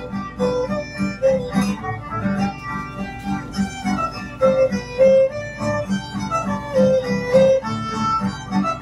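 A fiddle playing a lively melody over a steady strummed guitar rhythm, heard through a computer's speakers from a livestream.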